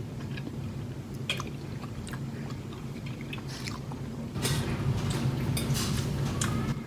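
Close-up chewing of spaghetti: small wet clicks and mouth noises, busier in the second half, over a low steady hum.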